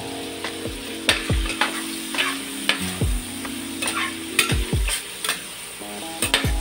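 Stir-frying in a pan: a cooking utensil clicking and scraping against the pan at irregular intervals as the pansit miki is tossed, over a steady sizzle.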